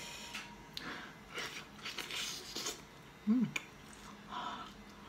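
Mouth sounds of a person biting into and chewing boiled chicken: a series of short wet smacks and crunches, with a brief voiced hum about three and a half seconds in.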